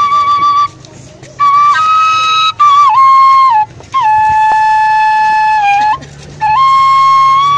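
Sundanese suling, an end-blown bamboo flute, playing a slow melody of long held notes joined by short slides in pitch, with three brief pauses for breath.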